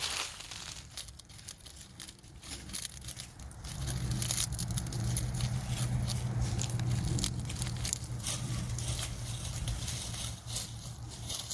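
Dense crackling and crunching, like dry material being crushed or rustled. A low steady hum joins about four seconds in and fades after about nine seconds.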